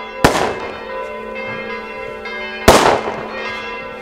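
Church bells ringing, with two loud firecracker bangs cutting through them: one just after the start and one a little before three seconds in.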